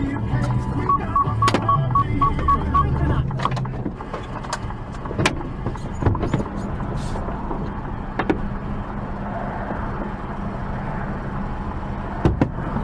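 Heavy truck's engine running steadily, heard from inside the cab as the truck slows to a stop. About a second in comes a quick run of eight short high beeps, and a few sharp knocks follow later.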